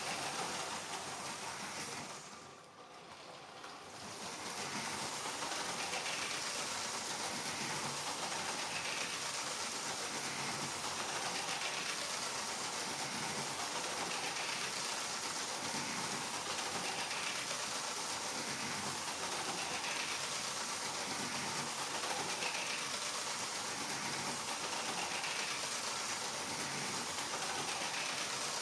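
Battery-powered LEGO trains running on a plastic track loop: a steady whir and rattle of motors and wheels, dipping briefly about three seconds in.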